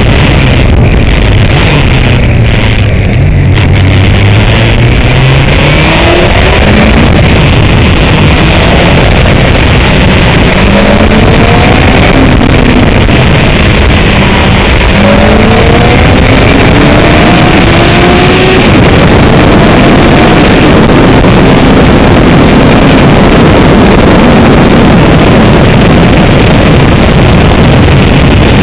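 Honda CBR600's inline-four engine under way, with heavy wind noise over it. Its pitch falls a few seconds in, then climbs in several rising sweeps as the bike accelerates up through the gears.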